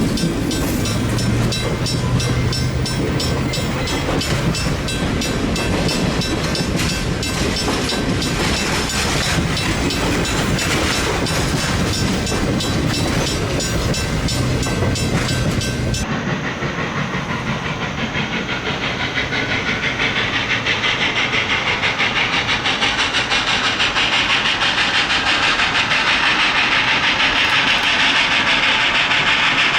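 Reading & Northern 2102 steam locomotive and its train running by, the cars clattering rhythmically over the rail joints. About halfway through, after a cut, a rhythmic rushing sound starts and grows steadily louder.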